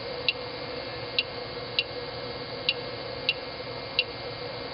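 Six short, sharp ticks spaced a little under a second apart, one for each step of the rotary knob on a 3D printer's LCD controller as it jogs the extruder backwards one millimetre per click to retract the filament. A steady hum runs underneath.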